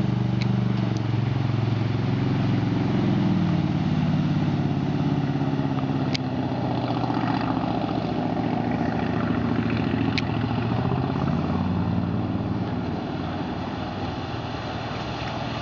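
A wooden speedboat's inboard engine running hard at speed, a deep steady engine note over the hiss of its spray and wake. The pitch falls over the first few seconds as the boat passes, and the sound eases off a little near the end.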